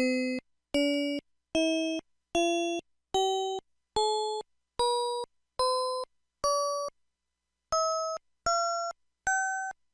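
PH-S6500 mobile phone keypad tones, synthesized by its Yamaha MA-5 sound chip and recorded straight from the line-in: short chime-like notes, each fading over about half a second. Nine step upward in pitch, then after a short pause three more also rise.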